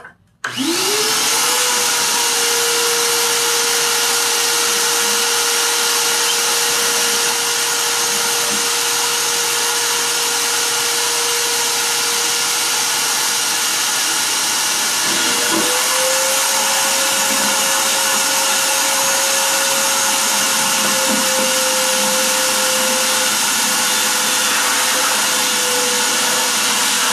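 Wet/dry shop vacuum switched on and spinning up within a second to a steady motor whine as its hose sucks water out of a toilet tank. About halfway through the pitch dips briefly, then comes back a little higher.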